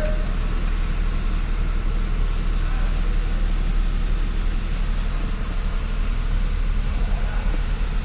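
Mercedes-Benz SLK 350 engine idling steadily, a low even running hum with no change in pitch or level.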